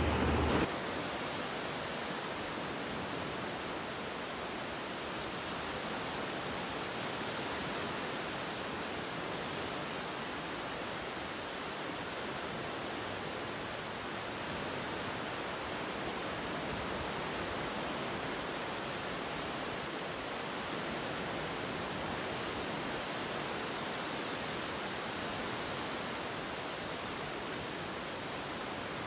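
Steady, even rushing noise with no rise and fall, starting suddenly just under a second in.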